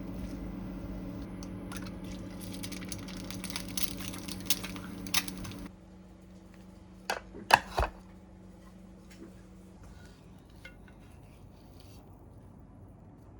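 Dishes and cutlery clinking and clattering over a steady appliance hum that cuts off a little past halfway. A cluster of sharp, loud clinks comes shortly after, then it goes quiet.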